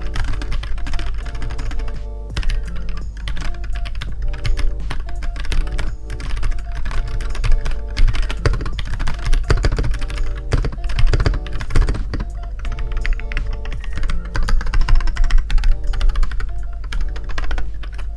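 Rapid typing on an Akko Year of the Ox 3068 v2 mechanical keyboard with Akko Rose Red linear switches: a dense, continuous run of crisp key clacks, "crispy" in the owner's word. Background music plays underneath.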